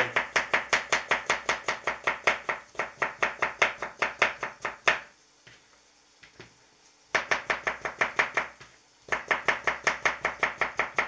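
Knife slicing a cucumber on a plastic cutting board: quick, even chopping strokes, about six a second, in three runs broken by short pauses, the longest pause about two seconds.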